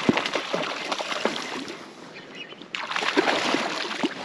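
A hooked trout thrashing and splashing at the water's surface in repeated bursts, with a short lull about two seconds in before the splashing picks up again.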